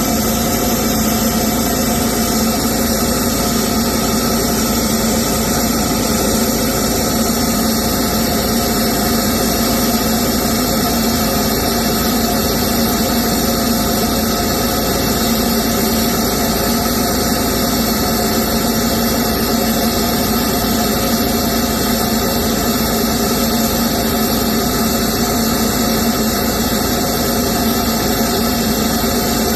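Diesel engine running at a steady speed, with no revving.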